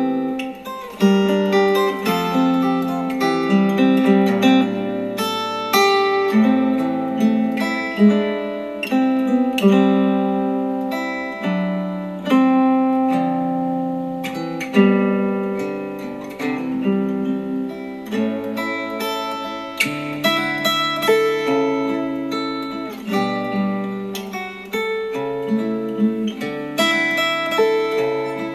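Instrumental acoustic guitar music, plucked and strummed with no vocals, played back through a Star Wars Millennium Falcon Bluetooth speaker.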